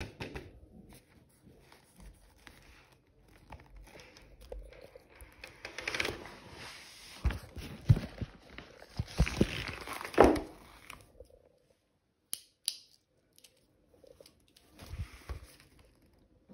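Crinkly rustling and handling noise of a camera phone being moved about over notebook paper. Several knocks come in the middle, then a short near-silent stretch with two sharp clicks, and a little more rustling near the end.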